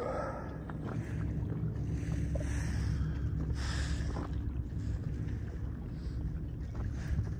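Kayak paddle strokes splashing in the water, one every second or two, over a steady low rumble.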